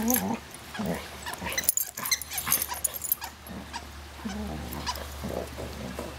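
Dogs play-fighting, with short play growls near the start and again in the second half, and a flurry of sharp clicks and scuffling in between.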